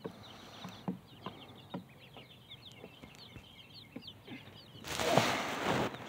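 Baby chicks and ducklings peeping: a steady stream of short, high cheeps. Near the end there is about a second of loud rustling close to the microphone.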